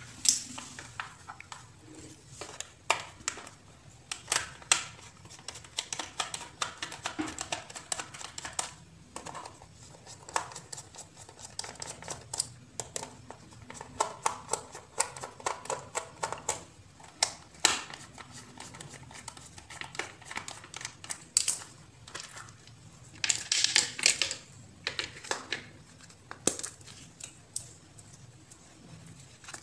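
Plastic power-strip extension board being handled and opened: irregular clicks, taps and scrapes of the plastic housing, with a louder run of scraping and rattling about four-fifths of the way through.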